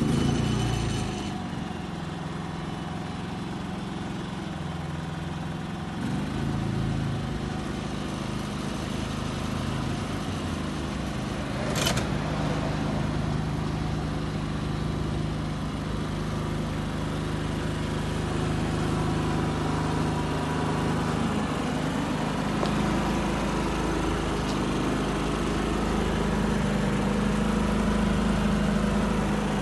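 Atlas Copco P3500i petrol inverter generator running steadily, with an even engine hum. The engine's pitch lifts briefly and settles about six seconds in, and there is a single sharp click about twelve seconds in.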